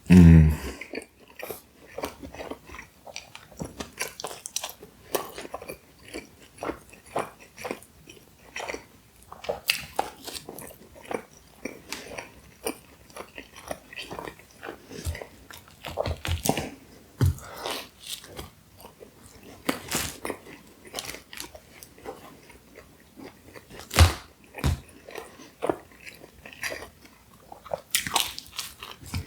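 Close-miked chewing and biting of a slice of Pizza Hut barbecue chicken pizza: irregular wet smacks and clicks of the mouth and crust. A brief low sound that falls in pitch comes at the very start and is the loudest moment.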